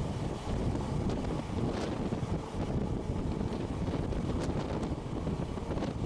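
Moving passenger train heard from on board: a steady rumble of wheels on track, with wind buffeting the microphone and occasional faint clicks from the rails.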